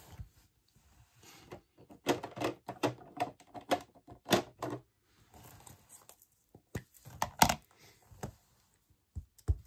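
Irregular clicks, taps and short rustles of paper-crafting tools and card being handled on a tabletop, busiest in the middle, with one sharp click near the end.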